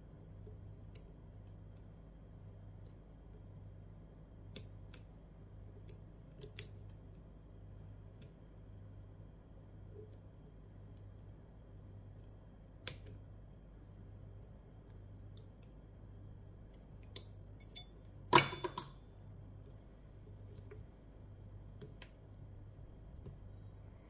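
Lock pick and tension wrench working the pins inside a Mul-T-Lock padlock's core: scattered small sharp metallic clicks, with a cluster of louder clicks about eighteen seconds in.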